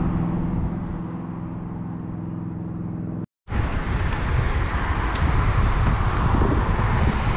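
Road traffic heard from a bicycle: a vehicle engine's steady hum, then, after a cut a little over three seconds in, a louder, even rush of road and wind noise.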